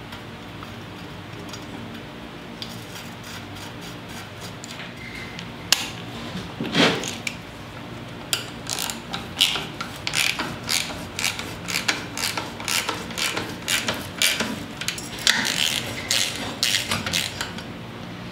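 Socket ratchet wrench clicking in short irregular runs as bolts are run down on a marine diesel's exhaust manifold, starting about six seconds in and busiest in the second half.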